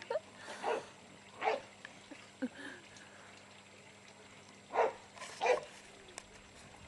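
Staffordshire bull terrier giving a few short, separate barks.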